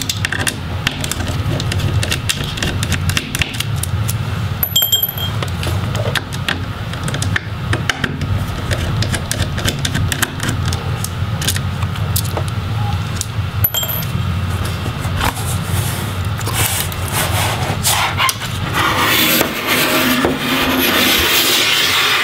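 Small screwdriver backing out T6 hinge screws from a MacBook Pro's aluminium case: scattered light metallic clicks and taps over a steady low hum. Near the end, louder rubbing and scraping as the aluminium palm rest is handled.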